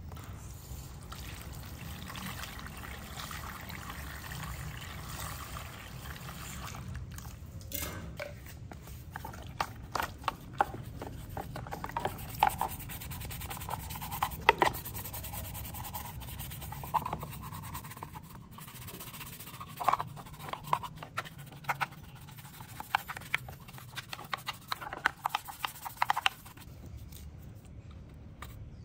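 Water running into a plastic tub for the first several seconds, then a small stiff brush scrubbing rusty drill housing parts in soapy water: a string of short scratching and scraping strokes with small splashes, stopping a couple of seconds before the end.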